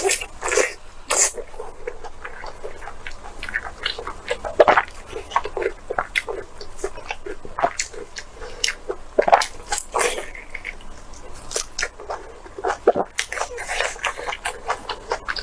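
Close-miked eating: chewing with wet smacks and mouth clicks, many short sharp sounds at an irregular pace.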